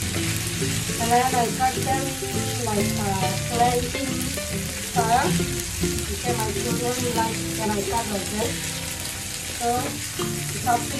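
Sliced okra sizzling in oil in a nonstick frying pan while a wooden spatula stirs and scrapes it, a steady frying hiss. A pitched sound rises and falls in the background.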